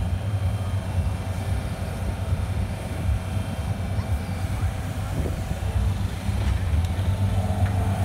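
Skid steer engine running steadily under load as the machine drives and lifts with its forks, a low continuous hum.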